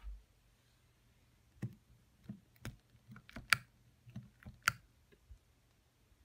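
Toiletries being picked up and handled on a cluttered dresser top: a dull thump, then about a dozen small, sharp plastic clicks and knocks, the two loudest about three and a half and four and a half seconds in.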